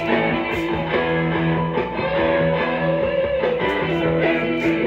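Guitar music played from an external audio device through the audio input and loudspeaker of a 1938 RCA Victor K62 console tube radio, as a test of its 6F6 output stage. The sound is thin, with little treble.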